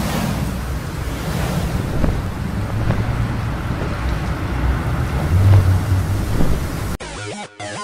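Rushing wind sound effect with low rumbles and faint whooshes. It cuts off abruptly about seven seconds in, replaced by electronic dance music with a steady beat.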